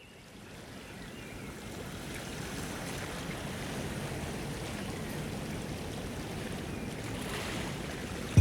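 A steady rushing noise, like running water or surf, fades in over the first couple of seconds and then holds steady.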